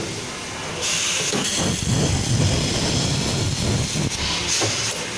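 Laser saw-segment welding machine welding a diamond segment onto a saw blade core: a steady hiss that starts about a second in and eases off near the end, over a lower machine noise.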